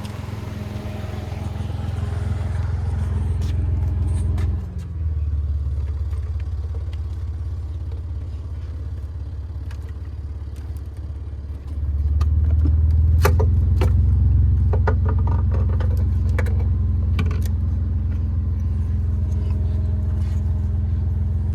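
Steady low bass drone from a car's subwoofers, which are being driven by the amplifier while its gain is set. The drone shifts about four seconds in and grows louder at about twelve seconds. Between about 13 and 18 seconds there are several sharp clicks and rattles.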